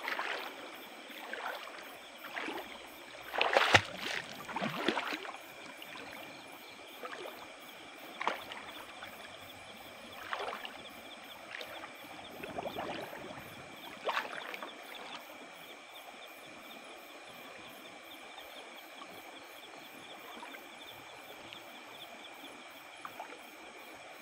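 Legs wading through a shallow flowing river, water sloshing and splashing in irregular bursts, the loudest about four seconds in. A steady insect trill runs underneath.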